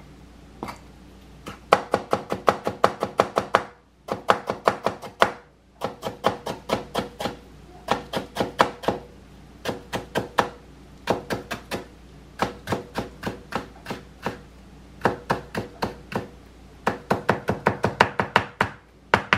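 Chef's knife chopping stacked cucumber slices into thin strips on a cutting board: quick, even knife strokes, about six a second, in runs of a second or two with short pauses between.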